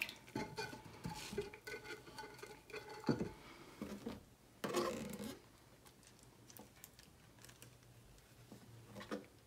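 Water splashing and dripping as wet hands scoop water from a plastic tub onto a tumbler, in irregular bursts with the biggest splash about five seconds in. After that only a few faint taps.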